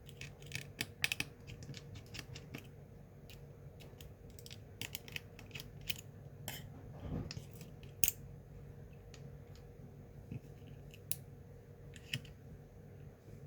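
Small metal tools clicking and tapping on an opened iPhone 6S: scattered sharp ticks as screws and the battery flex-cable cover plate are worked loose, over a low steady hum.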